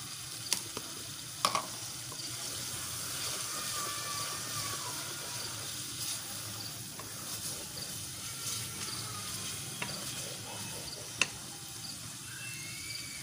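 Steady sizzling hiss of dal maash frying in a pot on the stove. A few sharp clicks come near the start and once more near the end, as green chillies are cut with a knife over a bowl.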